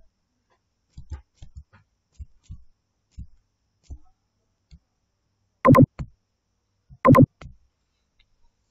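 Password being typed on a computer keyboard: a string of light key taps, followed by two much louder knocks about a second and a half apart.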